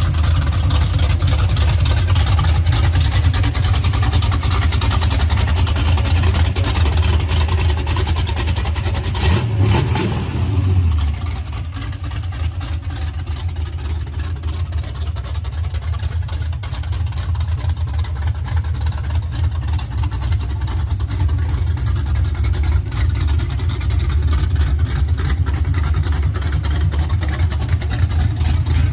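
Engine of a straight-axle gasser drag car running loud with a rapid, heavy low pulse. It swells around ten seconds in, then drops back a little and keeps running.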